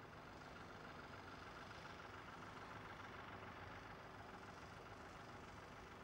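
Faint, steady mechanical noise of engines running, holding level without change.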